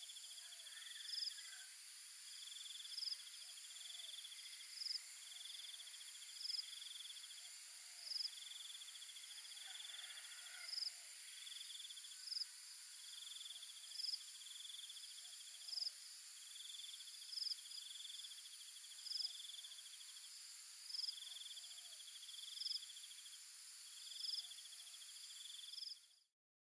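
Insects chirping: a steady high drone, a trilling call that repeats at a regular pace, and a short sharp chirp about every second and a half to two seconds. The chirps are the loudest part, and everything fades out quickly near the end.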